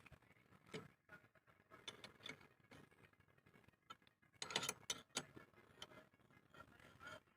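Faint metallic clicking and clattering of hand-worked metal parts, a tool or mechanism being turned and handled, with a denser run of clicks about halfway through.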